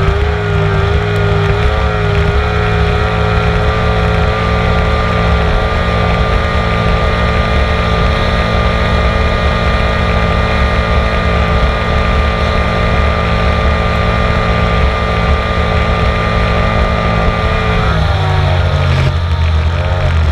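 Racing motorboat engine running hard at a steady pitch, heard from on board with wind noise on the microphone; about 18 seconds in the engine note changes and drops to a lower rumble.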